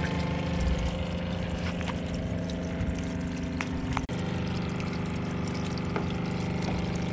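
A camper water pump rigged as a jet ski bilge pump runs with a steady electric hum, pumping bilge water that splashes out of the hull outlet. The sound drops out for an instant about four seconds in.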